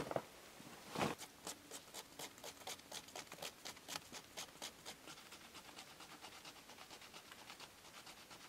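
Knife blade scraping birch bark in quick repeated strokes, about three a second. The first stroke, about a second in, is the loudest, and the strokes grow fainter toward the end.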